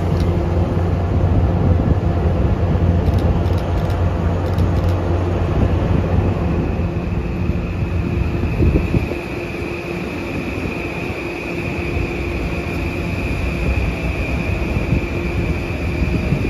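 Metro-North M8 electric multiple-unit train rolling past: a steady heavy rumble of wheels and running gear that eases about nine seconds in. A steady high-pitched whine from the traction equipment joins about six seconds in.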